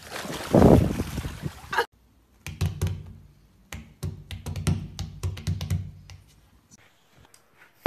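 Water splashing as a dog thrashes in a swimming pool, cut off sharply about two seconds in. Then a run of sharp taps and low thumps as a puppy paws at a tabletop.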